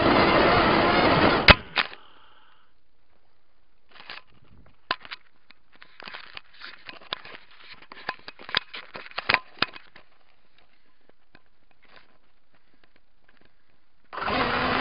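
Tiny Hubsan-clone quadcopter's motors buzzing, heard through its onboard camera, then cut off by a sharp knock about one and a half seconds in as the craft crashes. Scattered clicks and knocks follow in the quiet. Near the end the motors start buzzing again.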